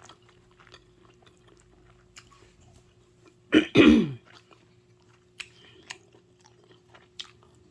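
A person chewing pizza with faint, scattered wet mouth clicks. About three and a half seconds in comes a short, loud voiced sound from the eater, falling in pitch.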